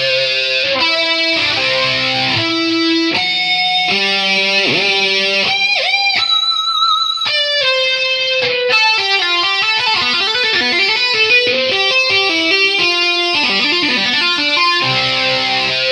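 Background music led by guitar playing a busy melodic line, with bent notes and a wavering held note about six seconds in.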